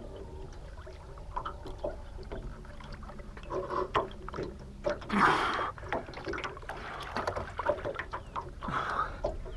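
Scattered knocks and clunks in a small boat as a freshly landed Murray cod and the landing net are handled, over a steady low hum. A louder rushing burst comes about five seconds in and a smaller one near the end.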